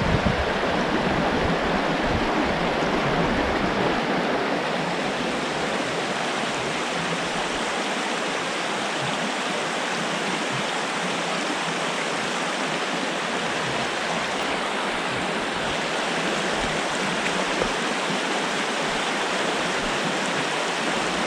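A small trout stream's water rushing steadily past the microphone. Some wind rumbles on the microphone in the first few seconds.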